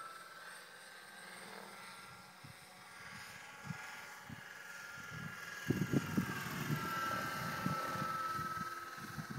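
Radio-controlled scale Bell 206L helicopter flying: a steady high whine from its motor and rotor drive, dipping slightly in pitch past the middle. Irregular low thumps come in during the second half.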